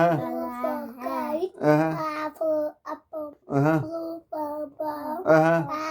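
Young children singing a song in high, wavering voices, in short phrases with brief breaks between them.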